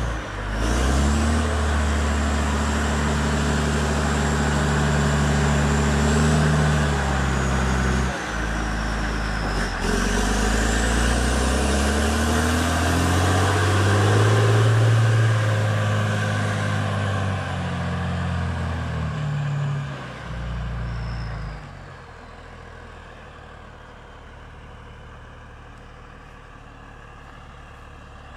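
Big turbocharged diesel engine of a large wheeled work machine pulling away under power, its note stepping up and down with the revs and a high turbo whistle rising and falling over it. The sound drops off sharply about 21 seconds in as the machine drives away.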